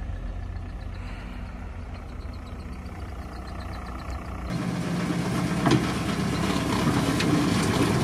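A Lada Niva's engine pulling slowly through a deep rut on a dirt track, heard from outside as a low rumble. About halfway through it switches to inside the cabin of a moving Volkswagen Transporter T3 over rough ground, louder, with its engine running and a couple of sharp knocks from the body over bumps.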